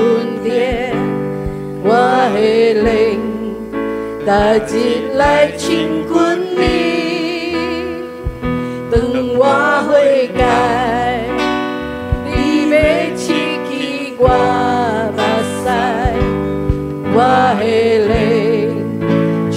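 A Hokkien Christian worship song sung with instrumental accompaniment, the voice holding long, wavering notes over steady chords.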